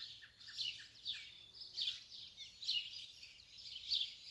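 Birds chirping: short, high calls repeating irregularly, about one or two a second, over a faint steady background hum.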